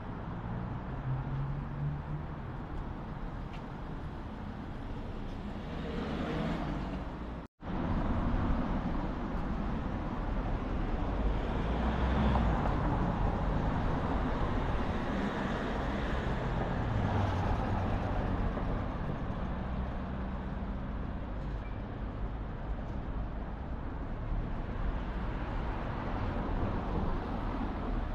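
Street traffic: cars passing along a town street over steady road noise, with swells as vehicles go by. The sound cuts out completely for a moment about seven and a half seconds in.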